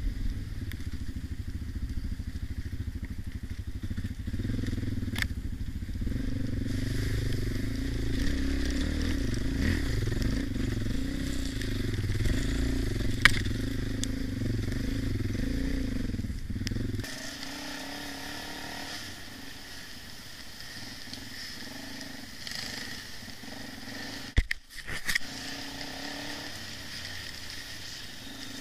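Dirt bike engine running under load on a forest trail, heard from a helmet camera, with a rumbling low end and occasional sharp knocks. The loudest knock comes about 13 seconds in. About 17 seconds in the engine drops sharply to a much quieter, steady run, and there are a couple more knocks near 25 seconds.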